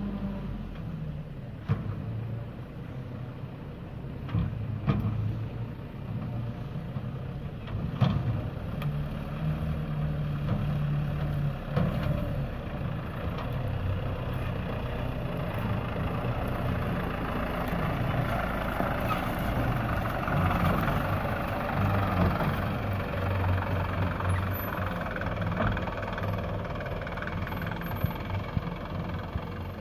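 Mitsubishi Canter light truck's diesel engine running steadily as the truck drives slowly over rough, stubbly field ground, with a few sharp knocks in the first dozen seconds. The engine sound grows fuller and louder for a while after the middle.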